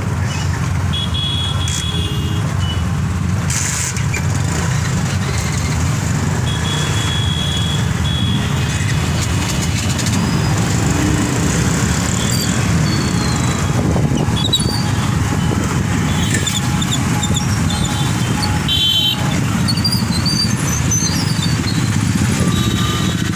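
Motorcycle and scooter engines running in a queue of road traffic, a steady low drone, with several short high-pitched beeps about a second in, near the middle and twice near the end.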